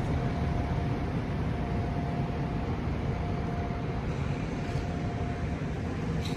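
Steady low rumble of a moving vehicle heard from inside, with a faint steady whine running through it.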